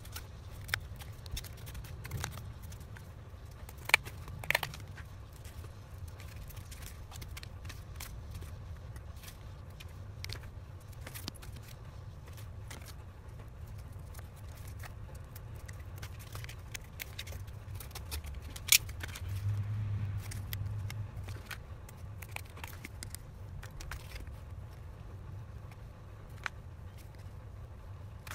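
Scissors cutting cardboard and stiff cardboard pieces being handled, heard as scattered sharp clicks, snips and scrapes over a low steady background rumble.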